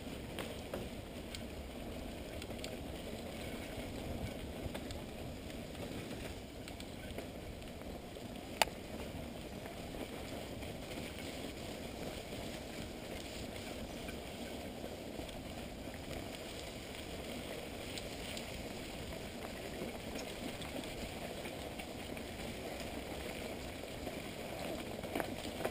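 Mountain bike riding over a muddy, rutted dirt trail: a steady rumble of tyres on the ground with small rattles from the bike, and one sharp knock about eight and a half seconds in.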